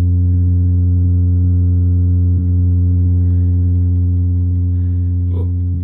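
Homemade breadboard oscillator synth (555-timer noise maker) playing a loud, steady bass drone of several held tones layered together, easing off slightly near the end.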